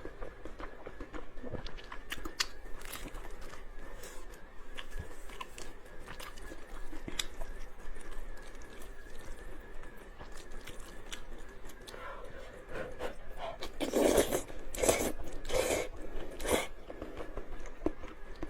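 A person eating noodles close to the microphone: chewing with wet mouth clicks and smacks throughout, and a few louder bites or slurps a little after the middle.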